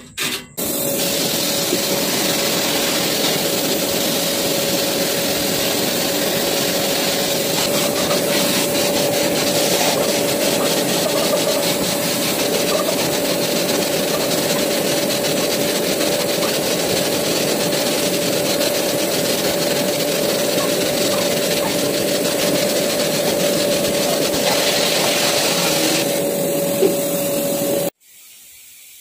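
Sandblast cabinet running: a steady loud hiss of compressed air and abrasive blasting a steel crown gear and pinion, with a steady tone underneath. It cuts off sharply near the end.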